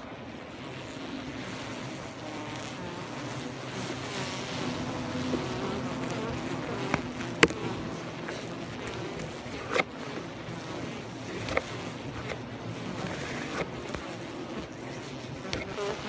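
Honeybee colony buzzing inside a Langstroth hive, heard close up from the hive entrance: a steady, dense hum of many wings. A few sharp ticks cut through it, the loudest about seven seconds in.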